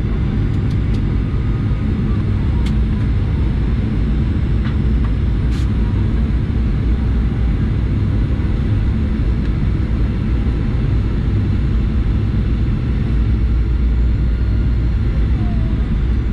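Steady low rumble of engine and airflow noise inside the cabin of a Boeing 737-800, with a few faint clicks in the first few seconds.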